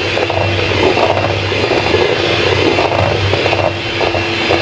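Hand-held electric beater running steadily with a motor hum, its beaters scraping against a stainless steel bowl as they cream ghee and powdered sugar into a paste.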